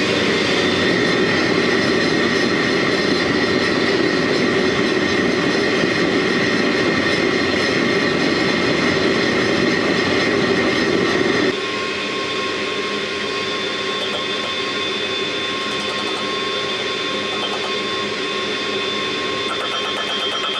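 Two-burner propane forge running: a steady rushing burner noise that drops a little quieter about halfway through.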